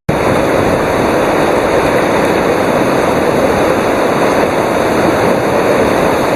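Rushing whitewater of a river rapid, a loud, steady wash of water noise.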